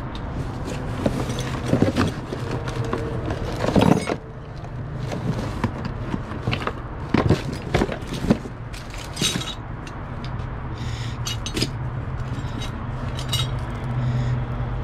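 Coins and small metal trinkets clinking and rattling as they are handled and rummaged through, a run of irregular clicks and knocks over a steady low hum.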